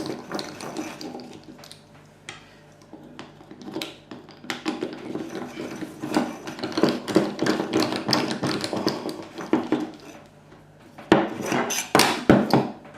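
Hand tools and small metal parts clicking, scraping and clinking on a workbench as the T25 Torx screws are undone from a car's electric parking brake motor housing. The handling is sparse at first, busier from about halfway, with a burst of sharp loud clatter near the end.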